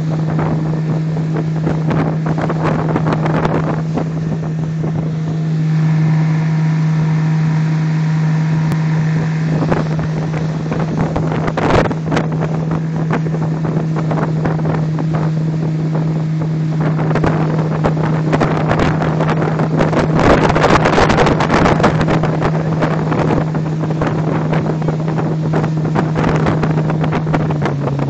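A RIB's outboard motor running steadily at speed, with rushing water and wind buffeting the microphone. The engine note drops slightly at the very end as the throttle is eased back.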